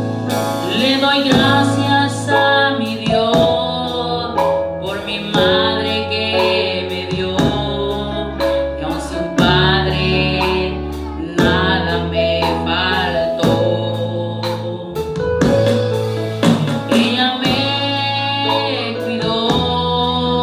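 A Christian song: a woman's voice singing over keyboard backing with a steady beat.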